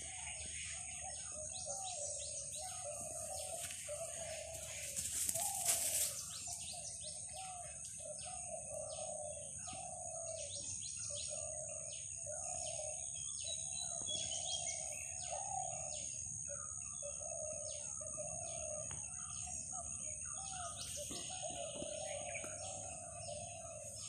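Garden birds chirping and calling over a steady high insect drone, with a lower call repeated over and over. A brief rustling noise about five seconds in is the loudest moment.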